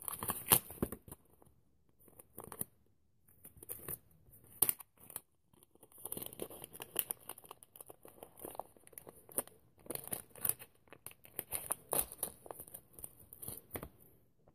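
Clear plastic lure packaging being opened by hand: irregular crinkling, rustling and tearing of the plastic, with short quiet gaps between.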